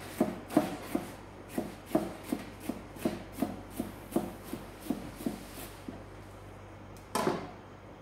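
Chef's knife chopping green bell pepper on a plastic cutting board: quick, even knife strokes about three a second, stopping near six seconds in. A single louder knock follows near the end as the knife is laid down on the board.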